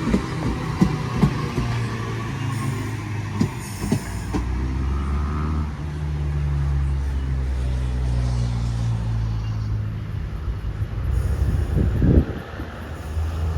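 OSCAR H-set electric multiple-unit train slowing at the platform. The whine of its traction motors falls in pitch over the first few seconds and gives way to a steady low hum. A few knocks come near the end.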